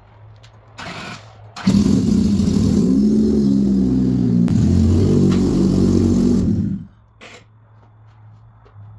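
Honda Civic driving close past with its engine running, loud for about five seconds with the engine note shifting in pitch, then dropping away suddenly as it stops.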